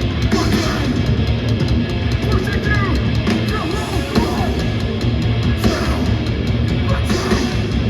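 Heavy metal music with a drum kit and distorted guitar playing steadily.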